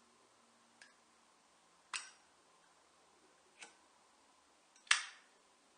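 Zippo lighter's metal lid flicked open and snapped shut. It makes sharp, separate metallic clicks: a faint one, then a strong one about two seconds in, a smaller one, and the loudest near the end.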